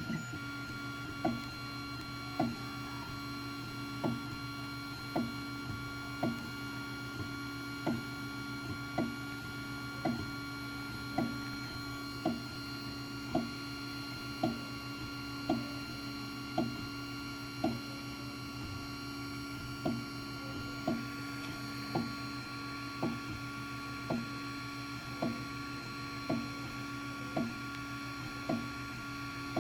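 Ender 3 Pro 3D printer running, with a steady hum from its motors and fans. A sharp click from the extruder repeats about once a second; this is the strange noise it is making.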